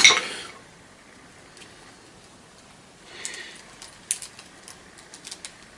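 Thin copper wire being worked free of a vacuum cleaner motor's winding by hand: a short hiss at the very start, a soft rustle about three seconds in, then a scatter of small sharp clicks.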